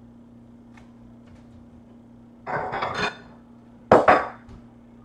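A utensil clattering and scraping against a slow cooker's crock as a cooked whole chicken is pulled apart, in two bursts: one about two and a half seconds in and a louder one about a second later. A low steady hum runs underneath.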